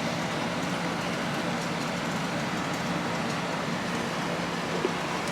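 Steady background noise: an even hiss with a faint low hum, and one light click near the end.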